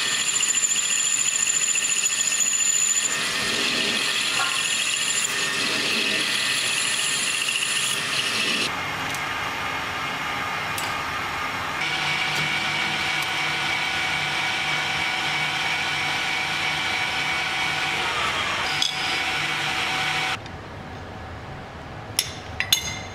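Metal lathe running while a lathe tool turns and faces a metal ring-mandrel bushing, a steady machine hum with a high cutting whine in the first few seconds. The running sound stops suddenly about 20 seconds in, followed by a few light clicks near the end.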